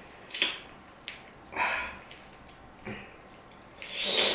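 Wet eating sounds from a mouthful of juicy dragon fruit: a few short squishy bites and slurps, the last one longer and swelling near the end.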